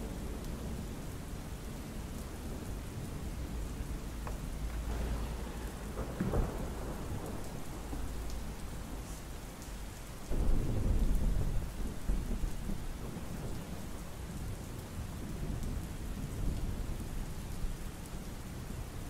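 Steady rain falling, with thunder: a sharp thunderclap about six seconds in and a louder rolling rumble starting suddenly about ten seconds in.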